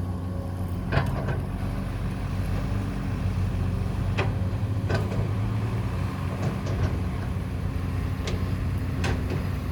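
Construction machine's engine running steadily with a low hum, with a few short clicks or knocks from the machine's working parts.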